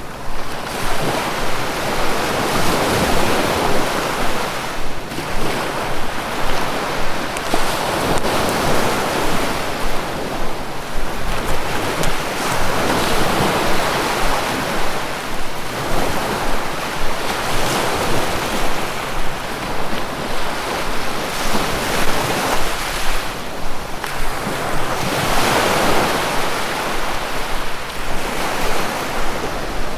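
Sea waves breaking and washing in continuously, the surf swelling and easing every few seconds, with wind.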